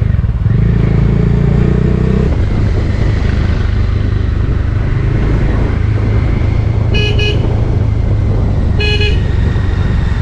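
Bajaj Dominar motorcycle engine running steadily while riding, heard from on the bike. A vehicle horn beeps twice quickly about seven seconds in, and once more about two seconds later.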